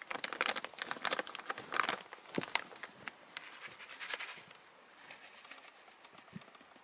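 Foil-lined packet crinkling and rustling as it is handled and tipped, with many small clicks; the rustling dies down after about four seconds.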